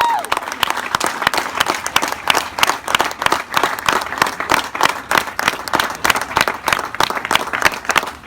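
Crowd applauding: many people clapping, with dense, irregular claps throughout.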